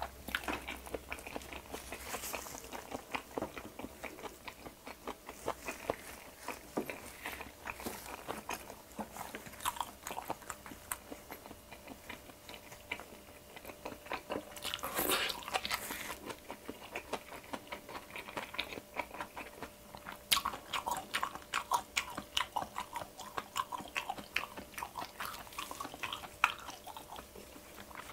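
Close-miked chewing and biting of pan-fried Korean pancakes (jeon): a steady run of small soft crunches and wet mouth clicks, with one louder noisy stretch of about a second about halfway through.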